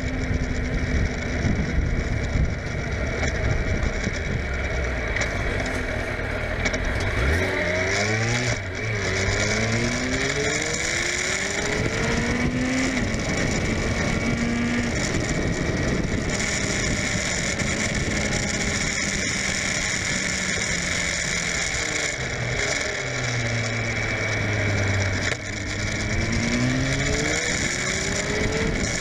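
Suzuki GSF600 Bandit's inline-four engine under way, with heavy wind rush on the microphone. It pulls up through several gears in a run of rising pitch about a quarter of the way in and again near the end, and holds steadier between.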